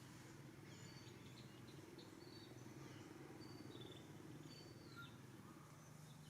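Near silence: faint outdoor ambience with a low hum and a scattering of short, high chirping calls.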